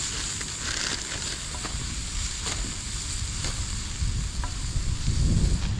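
Food frying in a pan on a wood-fired fire box stove: a steady sizzle with scattered small pops and crackles.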